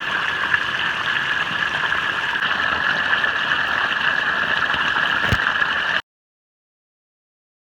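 A steady, loud hiss of rushing noise, with one sharp click about five seconds in, cutting off suddenly after about six seconds.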